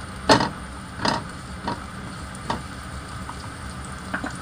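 Spatula stirring chopped garlic sautéing in oil in a nonstick frying pan. Short scraping strokes against the pan come about once a second, the first the loudest, over a low steady background.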